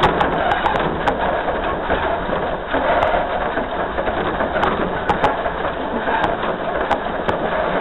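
Dollywood's narrow-gauge steam locomotive No. 192 running along curving track, heard from its front pilot: a steady rumbling clatter of wheels on rail with scattered sharp clicks.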